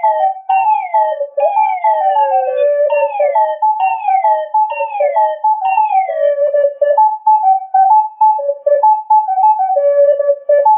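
Music: a flute-like melody playing a lively tune. For the first six seconds or so a second, higher line slides downward in pitch about once a second, then the melody carries on alone.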